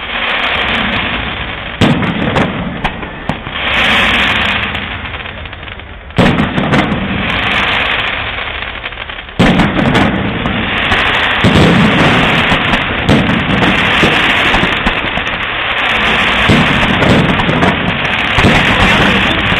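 Fireworks display: heavy bangs of bursting shells about 2, 6 and 9 seconds in, among scattered crackling pops. From about 9 seconds on it builds into a dense, continuous barrage of bangs and crackle.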